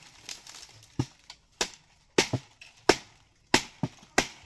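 Repeated blows of a hand blade chopping into the crown and leaf bases of a felled palm tree: about seven sharp, irregularly spaced strikes.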